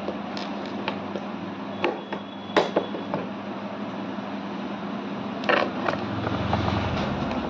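Steady background hum, with a few scattered light clicks and knocks of objects being handled. A low rumble swells near the end.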